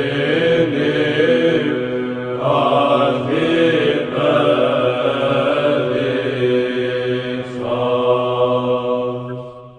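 Orthodox church chant: a melody sung over a steady low held drone, moving between long held notes. It fades out near the end.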